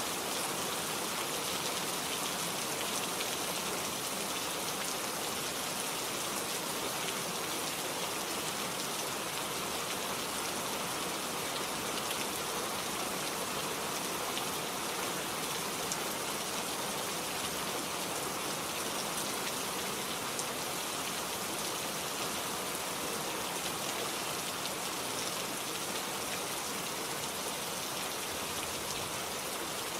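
Steady rain falling in a forest, a dense even hiss with many small drop patters on leaves and surfaces.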